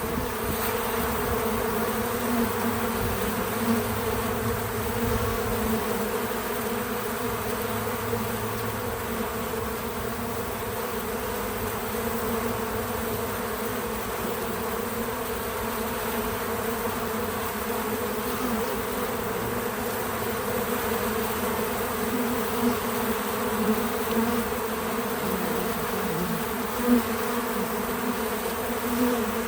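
Many bees buzzing around a feeder: a steady, dense hum of wingbeats, with a few brief louder moments near the end.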